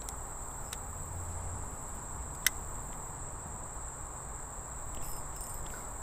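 Steady high-pitched drone of insects in the surrounding woods, with a single sharp click about two and a half seconds in.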